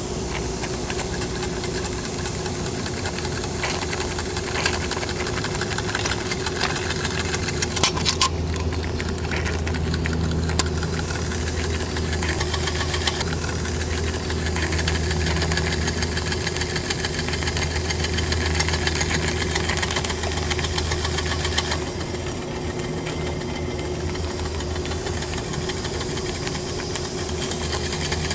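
Small steam engine running with a fast, even knock, fed by steam from a beer bottle boiler, with a steady hiss of steam escaping from a leaking joint.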